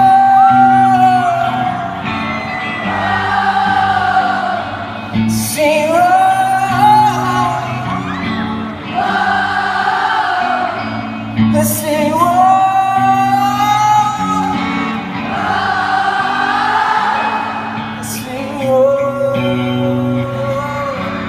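Live band music with sustained sung vocal lines over steady low chords, echoing in a large hall. Short loud bursts of noise stand out about every six seconds.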